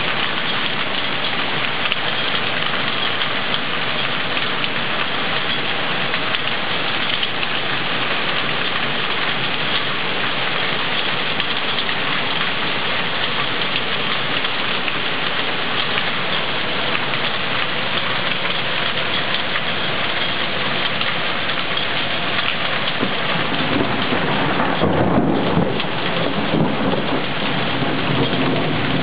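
Heavy rain pouring down in a thunderstorm, a dense steady hiss. About 24 seconds in, a roll of thunder rumbles for a few seconds under the rain.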